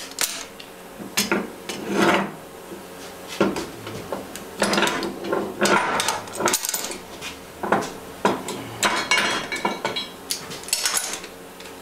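Irregular clanks and scrapes of metal on metal as locking pliers, steel blocks and a lathe steady rest casting are handled, unclamped and set down on a steel welding table.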